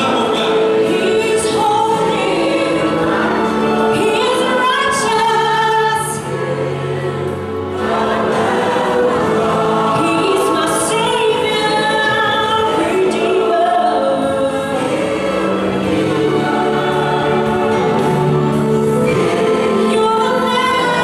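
Mixed choir of men and women singing a gospel song with instrumental accompaniment, easing off briefly about six seconds in.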